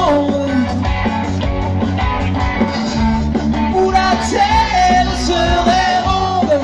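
Live rock band playing: electric guitars, bass and drums, with a man singing lead.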